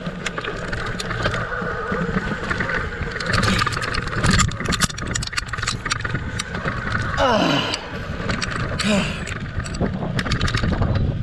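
Handlebar-mounted view of a Giant electric mountain bike riding a rough dirt trail: rapid rattling clicks and knocks from the bike jolting over stones and ruts, over steady tyre noise and wind rumble on the microphone. A short falling tone sounds once, about seven seconds in.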